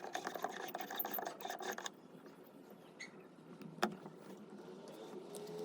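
Scraping and rubbing of hard parts as a camera is fitted onto a digital inspection microscope, dense for about two seconds, then quieter, with one sharp click a little under four seconds in.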